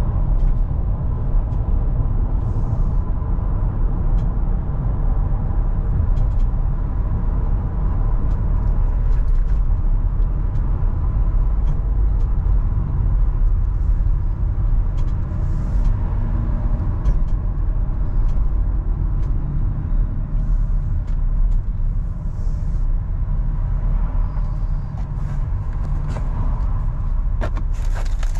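Car being driven: a steady low rumble of engine and road noise that holds an even level throughout.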